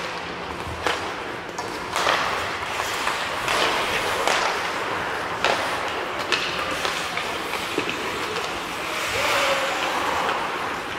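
Ice hockey play: skate blades scraping across the ice, with sharp clacks of sticks and puck striking every second or so.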